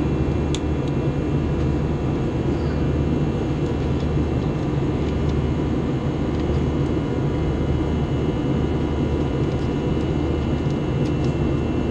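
Steady cabin noise of an Airbus A321 in flight: engine and airflow noise at an even level, with a few faint steady high tones over it.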